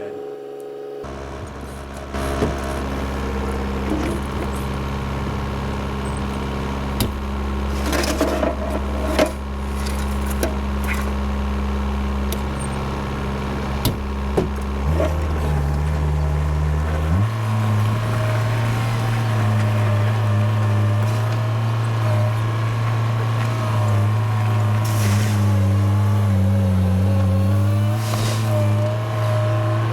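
Heavy construction machine's engine running steadily, its speed stepping up about halfway through, with a few short knocks around a third of the way in.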